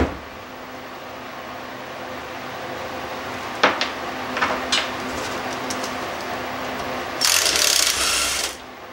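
Hand tools working on a lawn tractor's Kohler engine during teardown: a few sharp metal clicks, then a harsh, rapid burst of about a second and a half near the end, over a steady low hum.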